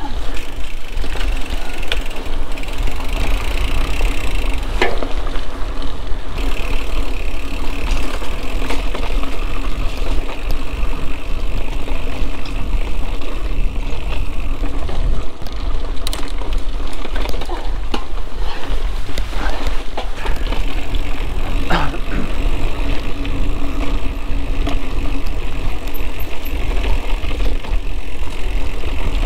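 Mountain bike being ridden along a dirt trail: a steady low rumble of riding noise with tyre and trail noise, and a few sharp knocks and rattles as the bike goes over bumps.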